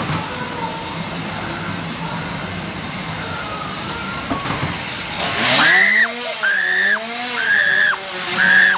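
Ghost-train car rumbling along its track in the dark. About five seconds in, a loud warbling wail from the ride's sound effects starts, rising and falling in pitch about one and a half times a second.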